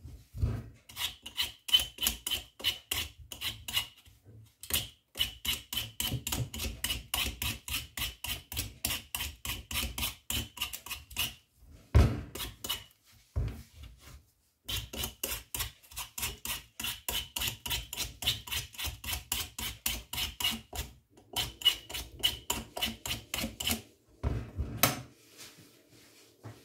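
A Y-shaped vegetable peeler scraping the hard rind off a whole pumpkin in quick short strokes, about four a second, in long runs broken by brief pauses. Two louder thumps fall about midway and near the end.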